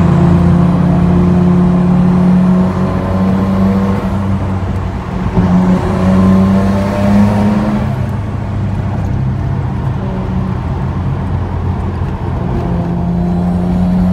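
R32 Nissan Skyline GT-R's twin-turbo inline-six running under way, heard from inside the car. Its pitch climbs between about four and eight seconds in as it accelerates, then drops back to a steady cruise.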